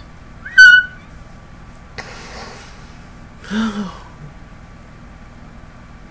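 A man laughing: a short, loud, high-pitched squeal of laughter about half a second in, a breathy exhale at about two seconds, then a brief low hum.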